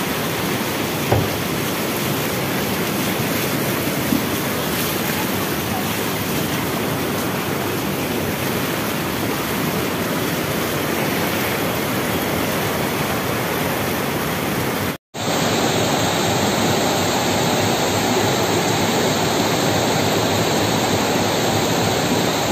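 Heavy rain and rushing muddy floodwater, a steady wash of water noise. About fifteen seconds in it cuts abruptly to another recording of heavy rain and floodwater.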